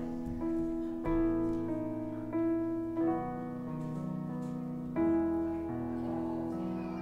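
Slow instrumental piano music: sustained chords over a bass line, with a new chord struck roughly every half second to second and a longer held chord near the end.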